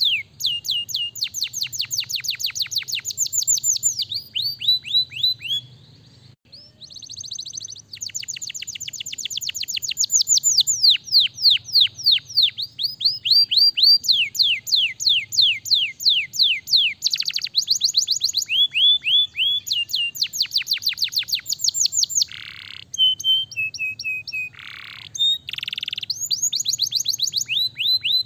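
Domestic canary singing a long, fast song: trills of rapidly repeated downward-sweeping notes, each trill giving way to another of a different speed and pitch every second or two, with a short break about six seconds in.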